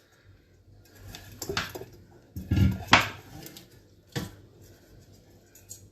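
Metal pots and utensils knocking and clinking as they are handled, with a few separate knocks, the sharpest about three and four seconds in.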